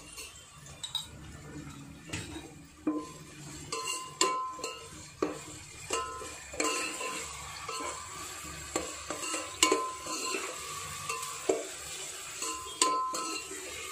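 Perforated steel skimmer scraping and knocking against an aluminium pot while sliced onions and ginger-garlic paste are stirred in hot oil. The knocks come irregularly, about one or two a second, some of them ringing, over a light sizzle of frying.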